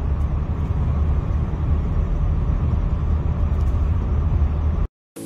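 Car cabin noise while driving on the highway: a steady low rumble of road, tyre and engine noise, which cuts off suddenly near the end.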